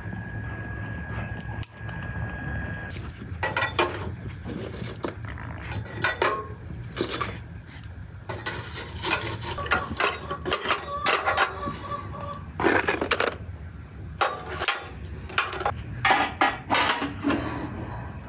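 Dishes and cutlery clinking and clattering: irregular knocks of crockery and metal, several of them ringing briefly.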